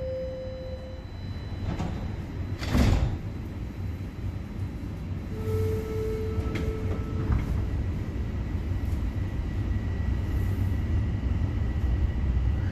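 Bombardier Toronto Rocket subway car doors sliding shut with a thud about three seconds in. The train then pulls away: a low rumble that builds, with a steady high whine coming in over the last few seconds.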